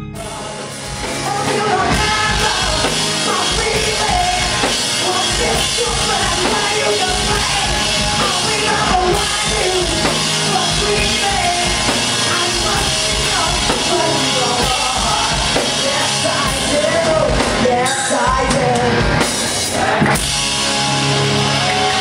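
Rock band playing live: electric guitar and drum kit under a singer's voice, loud and dense.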